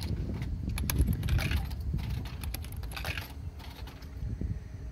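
Coins clinking as they are dropped into a drink vending machine's coin slot, in about three separate bursts, over a steady low rumble.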